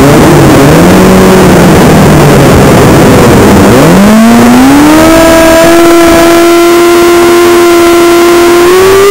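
Suzuki GSX-R600 supersport motorcycle engine on the starting grid, revs blipped up and down, then about four seconds in raised and held steady at high rpm, waiting for the start.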